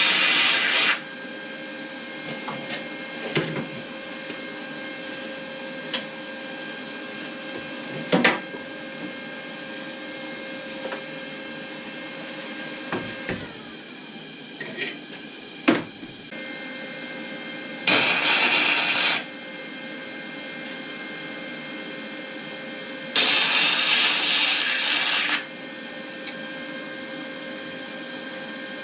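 A handheld power tool running in three short bursts of one to two seconds each, near the start, about 18 seconds in and about 23 seconds in, with scattered knocks and clicks of work between them over a steady background hum.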